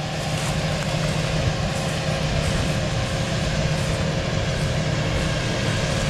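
A vehicle running steadily: an even rumble with a faint steady hum throughout.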